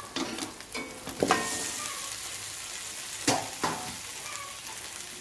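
Pre-fried pumpkin, potato and long-bean pieces sizzling as they go into a karahi of hot oil and fried spice paste. A metal spatula knocks and scrapes against the pan a few times, most sharply about a second in and again past three seconds.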